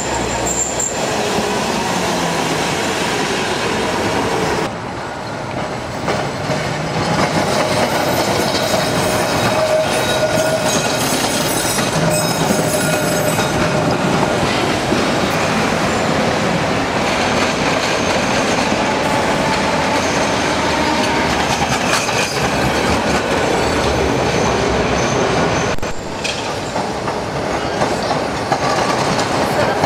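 Milan Peter Witt streetcars running over street track, their steel wheels clattering on the rails and squealing high through the curves of a junction, amid city traffic.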